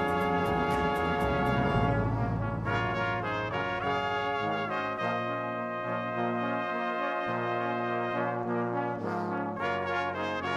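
Background music of long held chords, in a brass-like sound, changing every second or so, with a few sharp beats at the very start.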